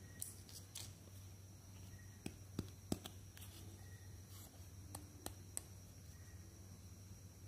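Small plastic toy accessories handled by hand, a toy hairbrush picked up and turned in the fingers: about ten light plastic clicks and taps, the loudest about three seconds in, over a faint steady hum.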